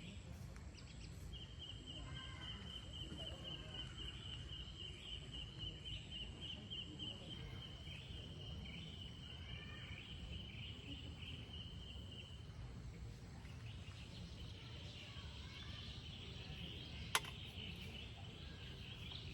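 Pine-forest ambience: a high, rapidly pulsing trill that holds steady for about eleven seconds and then gives way to a hazier high buzz, with faint chirps and a low rumble underneath. One sharp click sounds near the end.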